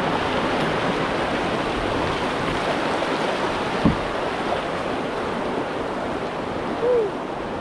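Rushing water of river rapids around a paddled kayak: a steady, loud wash that eases slightly toward the end, with a single sharp knock about four seconds in.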